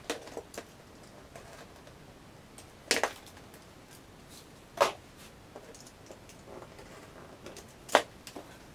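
Sharp taps and knocks from handling and trimming cork track underlay strips on a model railway baseboard: a few light clicks at first, then three sharper knocks a couple of seconds apart, with faint ticks between.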